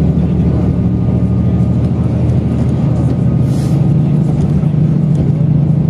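Diesel limited-express railcar heard from inside the carriage at speed: a steady low engine drone over the rumble of wheels on the track. A brief hiss comes about three and a half seconds in.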